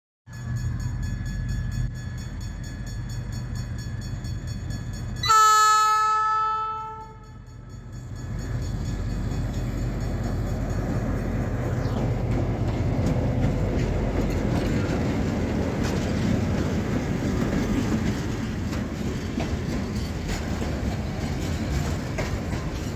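Loaded freight train hauled by an ALCo RSD16 and an EMD GR-12W diesel locomotive passing: the diesels run steadily, and a locomotive air horn sounds one chord about five seconds in, lasting about a second and a half. From about eight seconds on, the wagons roll by with a steady rumble of wheels on rail.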